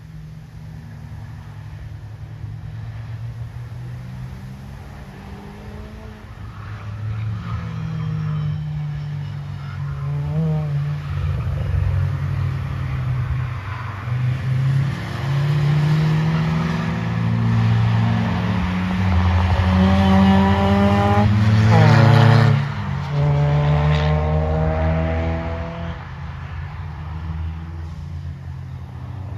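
Track cars passing on a race circuit, engines accelerating hard with the pitch climbing through the gears. The sound builds to its loudest about 20 to 22 seconds in, drops sharply as the driver lifts or shifts, then climbs again and fades away.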